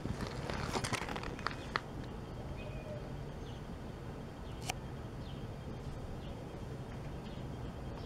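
Outdoor ambience: a steady low rumble with faint short bird chirps now and then. A few sharp clicks in the first two seconds and a single sharper click a little before five seconds.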